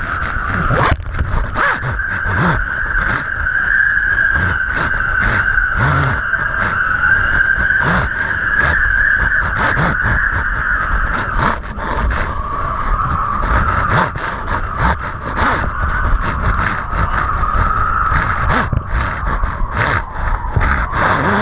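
Wind buffeting an action camera mounted on kite lines, with a steady high whistle that dips a little in pitch about twelve seconds in and rises again, over rough low rumbling and crackling while a kiteboard runs across the water.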